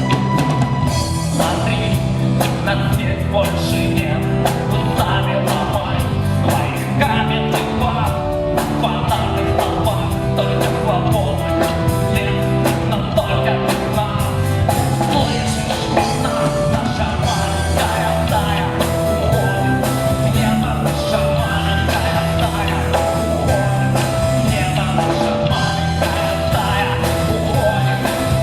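Rock band playing live, a drum kit keeping a steady beat under guitar and sung vocals.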